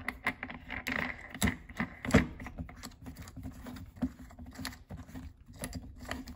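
Plastic safety cap of a Bissell Steam Shot handheld steam cleaner being turned back onto its water tank: a run of irregular plastic clicks and taps, the loudest about two seconds in.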